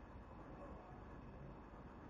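Near silence: a faint steady hiss with a low hum that comes and goes.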